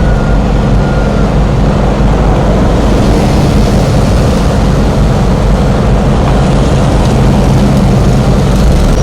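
Loud, steady engine noise: a continuous low hum with an even rushing noise over it, unbroken throughout.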